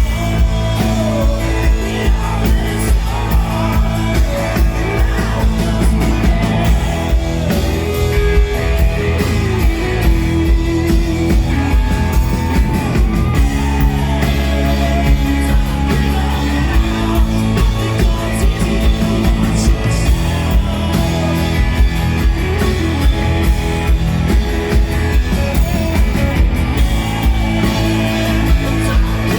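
Live rock band playing an instrumental stretch of a song: drums keeping a steady beat under guitars and bass.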